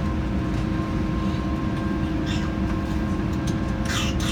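Steady cabin noise of an Airbus A380 that has left its gate: a constant low rumble with a few steady humming tones from the engines and air conditioning. A short high squeak rises and falls near the end.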